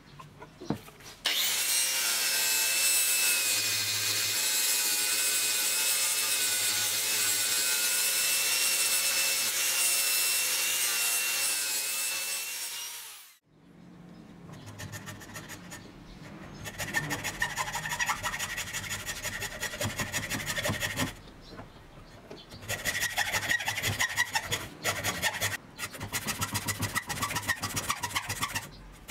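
A loud steady whine with a slightly wavering pitch, which fades out about halfway through. It is followed by a hand hacksaw cutting a small piece of wood held in a vise, with quick rasping back-and-forth strokes in two spells and a short pause between them.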